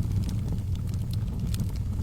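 Wood fire burning in a fireplace: scattered sharp crackles and pops over a steady low rumble of the flames.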